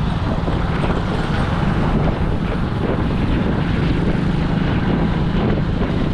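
A vehicle running steadily on the move, its engine a low, even hum under wind buffeting the microphone and road noise.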